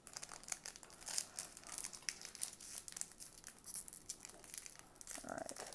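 Plastic wrapper of a baseball card pack crinkling and tearing as hands pull it open, in a rapid run of irregular crackles. The pack is a stiff one that doesn't open easily.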